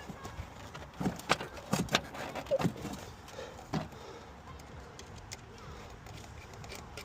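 Hand tools and engine parts clinking and knocking as components are worked loose in a car's engine bay: a cluster of sharp metallic clicks and knocks in the first four seconds, then a few faint ticks.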